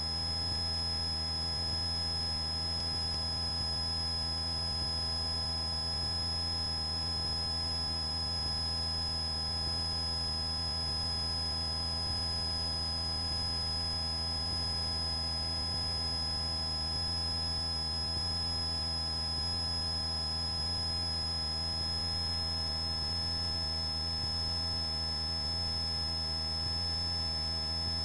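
Steady electrical hum with a constant high-pitched whine and several other unchanging tones underneath, at a low level.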